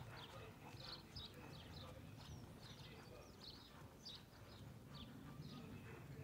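Faint birds chirping, with the soft, distant hoofbeats of a horse cantering on a sand arena surface.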